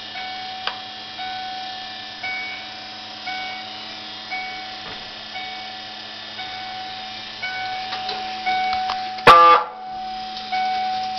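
Ford E150 van's turn signal flasher ticking about once a second, each tick with a brief ringing tone, over a steady low hum. A single loud knock comes about nine seconds in.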